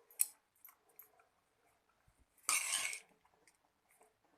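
Metal spoon clinking against a pan of lemon rice, with a few light ticks and a louder half-second scrape through the rice about two and a half seconds in.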